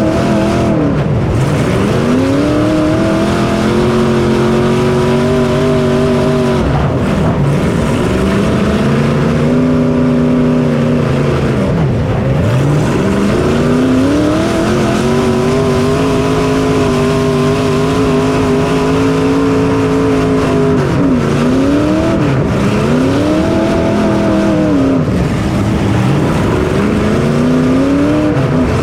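Race car engine heard onboard, running at high revs on the throttle. The pitch drops sharply and climbs back several times as the throttle is lifted and reapplied, with a double dip near two-thirds of the way through.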